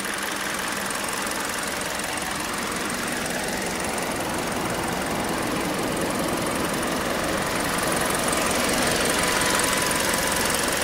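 2016 Kia Sportage's 2.0-litre inline-four DOHC 16-valve engine idling steadily, heard close up in the open engine bay; it gets a little louder over the last few seconds.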